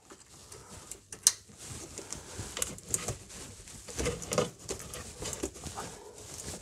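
Plastic clicks and rustling from hands working the ABS wheel speed sensor's electrical connector and its corrugated plastic wiring loom, with one sharp click about a second in.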